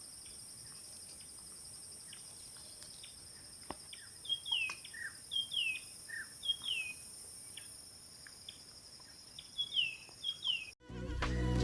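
Insects trill steadily in the background while birds call with short downward-sliding chirps, several in quick pairs. Music starts abruptly near the end.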